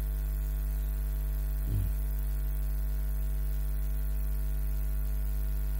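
Steady electrical mains hum: a constant low drone with many evenly spaced overtones. A short faint pitched sound comes about two seconds in.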